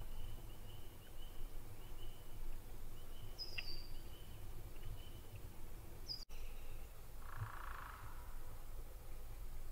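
Distant frogs and birds calling around a marshy lake: short high peeps repeated through the first half, a quick high note falling in pitch twice, and a brief trill about seven seconds in. A low steady rumble runs underneath, and the sound drops out for an instant about six seconds in.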